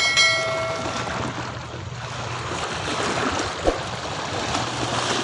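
Calm seawater lapping and washing against the shore. At the start comes a bright, bell-like ding that fades over about a second, from a subscribe-button animation. A single short knock comes a little past the middle.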